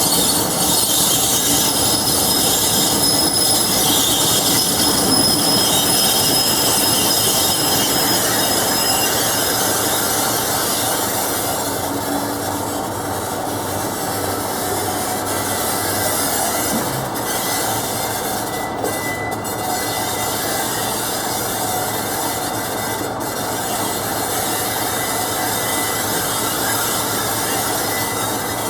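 Class 47 diesel locomotive braking, with high-pitched brake and bogie squeal over the steady rolling noise of the train. The squealing tones are strongest in the first ten seconds or so and then ease a little.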